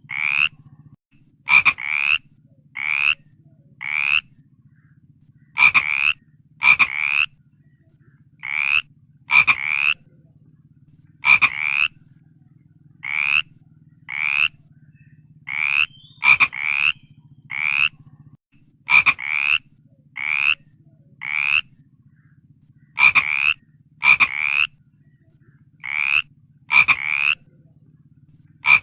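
A frog calling over and over with short croaks, each about a third of a second, coming in clusters of two to four with pauses between. A faint steady low hum runs underneath.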